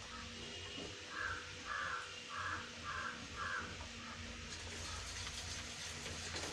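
A crow cawing five times in quick succession, over a faint steady hum. Near the end, faint scraping of a metal ladle stirring in the pot begins.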